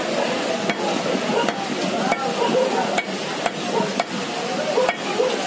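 Heavy curved knife chopping a chicken on a wooden block: about seven short, sharp strikes at uneven intervals, over steady market background noise and faint voices.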